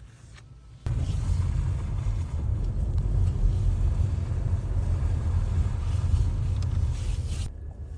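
Steady low rumble of a car driving, road and engine noise, that starts abruptly about a second in and drops away near the end.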